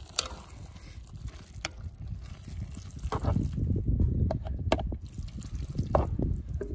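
A silicone spatula stirring shredded cheese into a thick, simmering ground-beef and corn filling in a cast-iron Dutch oven: wet, squelchy stirring that gets louder about halfway through, with a few light clicks against the pot.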